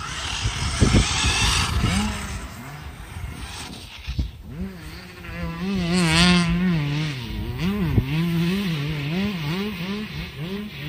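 A vehicle motor revving up and down in quick repeated pulses, with a noisy rush of thrown dirt in the first couple of seconds.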